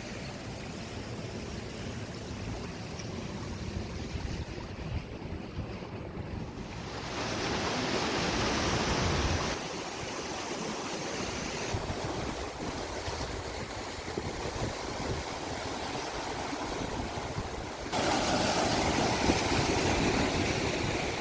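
Sea waves breaking and washing in, with wind on the microphone. There are two louder surges, about a third of the way in and near the end.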